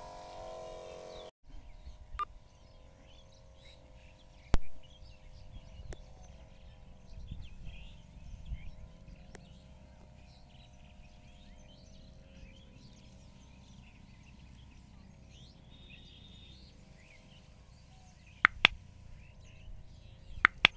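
A battery-powered backpack sprayer's pump buzzing steadily, cutting off abruptly about a second and a half in. Then birds chirping over a faint steady hum, with a few sharp knocks, twice near the end.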